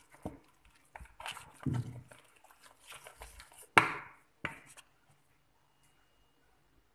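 Wooden spoon stirring flour into a wet bread dough in a bowl: irregular scraping and knocking against the bowl, with one sharper knock about four seconds in.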